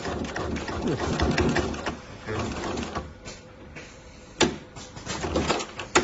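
Juki industrial sewing machine stitching heavy fabric in bursts, running fast with rapid clicking, pausing, then running again, with two sharp clicks: one about four and a half seconds in and one at the end.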